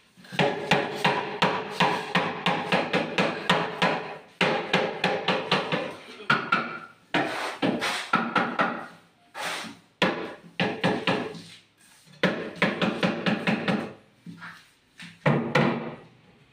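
Hammer driving nails into wood: rapid blows, about four or five a second, in runs of a few seconds with short pauses between.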